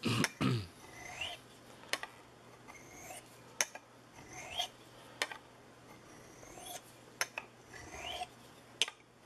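Steel skinning-knife blade (440 stainless) stroked across a natural serpentine sharpening stone in fine honing. There is a scraping stroke that rises in pitch every second or two, with sharp light clicks between the strokes.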